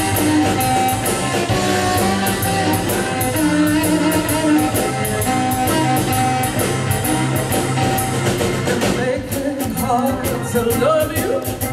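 Live blues band playing: a drum kit keeping a steady cymbal beat under electric guitar, bass, keyboard and harmonica. About nine seconds in the cymbal beat drops out and the band plays quieter, with bending melody notes over it.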